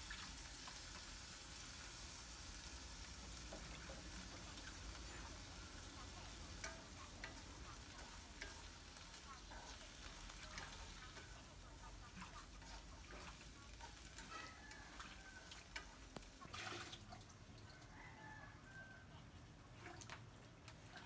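Shrimp frying faintly in a wok, with long chopsticks stirring and clicking against the pan now and then.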